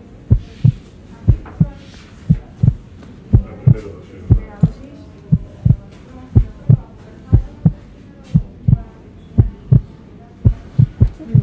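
Heartbeat: a steady lub-dub of paired low thumps, about one beat a second.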